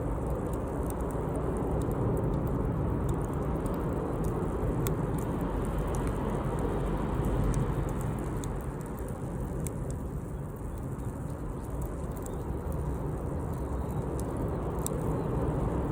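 Campfire burning, with scattered sharp crackles and pops over a steady low rumble.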